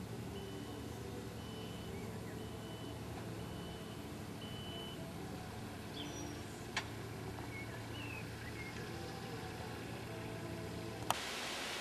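A vehicle engine running steadily, with an electronic reversing beeper sounding about once a second for the first five seconds. A few faint bird chirps come later. The engine sound cuts off suddenly near the end, giving way to steady hiss.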